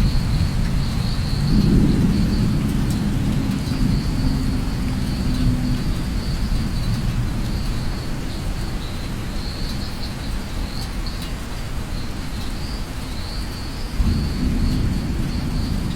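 Steady rain with low thunder rumbling underneath, the rumble swelling about two seconds in and again near the end.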